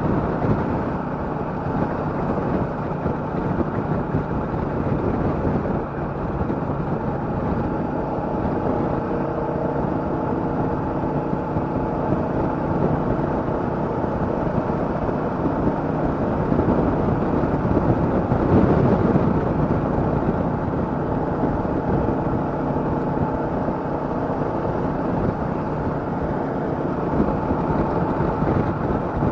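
Royal Enfield Meteor 350's single-cylinder engine running under way, mixed with wind and road noise. The engine note swells briefly about two-thirds of the way through.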